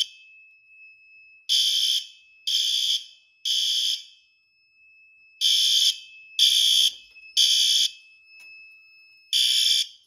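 System Sensor L-Series fire alarm horn/strobes, an LED and a xenon unit, sounding in sync as one electronic horn in the temporal-three evacuation pattern. Three half-second blasts, a pause, three more, then the first blast of the next round near the end. A faint steady high tone sounds in the gaps between the blasts.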